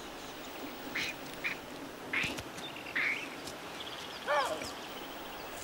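Wild animal calls over a faint outdoor background: four short calls in the first three seconds, then a louder call about four seconds in.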